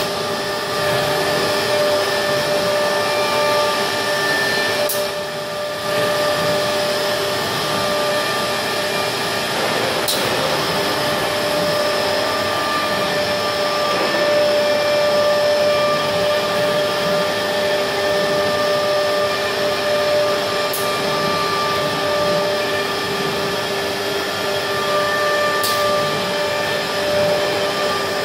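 Nesting CNC router cutting a chipboard panel with its HSD spindle and dust extraction running: a steady, loud machine whine with several held tones over a hiss. There are a few sharp clicks, and the sound dips briefly about five seconds in.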